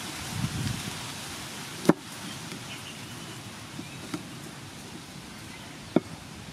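Large kitchen knife chopping limes on a wooden chopping board: two sharp knocks of the blade hitting the board, about four seconds apart, with a couple of lighter taps between.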